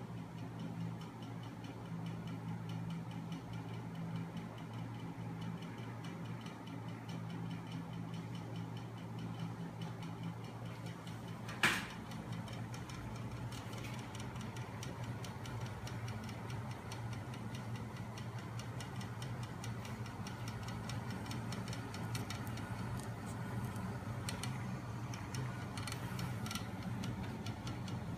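Home-built magnet engine running, driven by a small electric motor, with its flywheels and crankshafts spinning: a steady low hum with fast, even ticking. One sharp click sounds about twelve seconds in.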